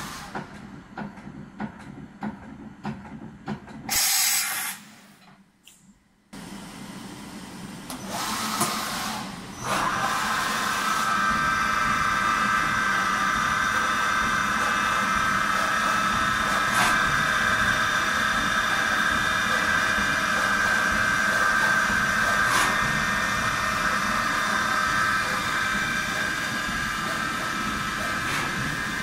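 Kondia B-1050 vertical machining center's spindle running at steady speed, a steady high whine with several tones, which starts about ten seconds in. Before it comes a run of clicks and a short hiss from the machine.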